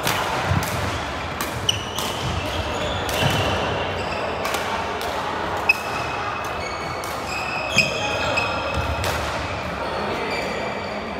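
Badminton rally: sharp racket strikes on the shuttlecock every second or two, with short high squeaks of sneakers on the wooden court floor.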